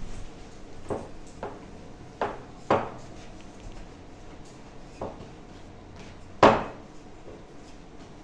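Thin wooden rolling pin knocking and clacking against a wooden board as small rounds of dough are rolled out: six sharp knocks, spread unevenly, the loudest about six and a half seconds in.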